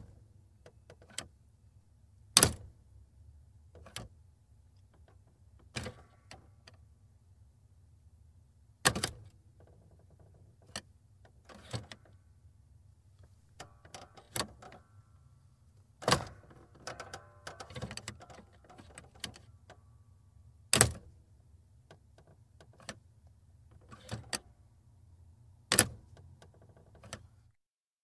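Automatic transmission gear selector of a 2002 Mercury Sable being shifted between positions: a series of sharp clunks and clicks every couple of seconds, some loud, with fainter clicks between and a low steady hum underneath.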